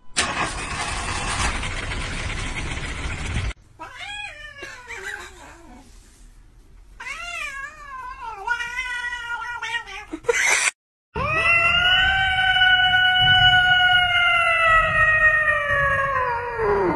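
A loud rough noise without pitch for the first few seconds, then a cat meowing repeatedly with falling, wavering pitch, then a cat's long drawn-out yowl into a microphone, held steady for several seconds before its pitch drops away.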